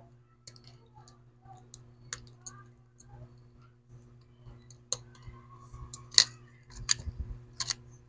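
Scattered light clicks and taps of tools and small smartphone parts being handled during reassembly, with several sharper clicks in the second half, over a steady low hum.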